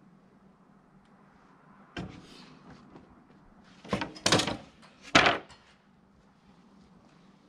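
A few hard knocks and clunks: one about two seconds in, two close together near four seconds, and the loudest about five seconds in.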